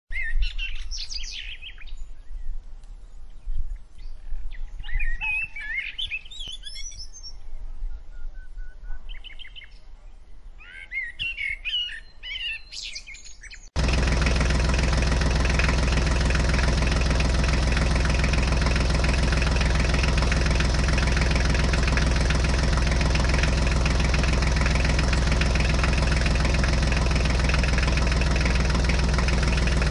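Small birds chirping in short bursts over a faint low rumble; about halfway through, a loud, steady engine running sound cuts in abruptly and holds unchanged.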